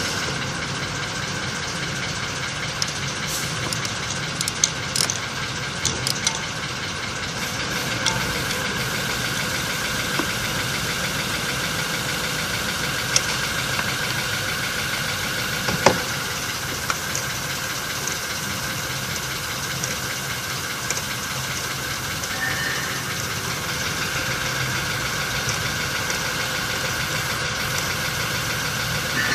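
A steady mechanical hum with a held mid-high tone, like a machine or engine running, broken by a few sharp clicks, most of them between about three and eight seconds in and one louder one past the middle.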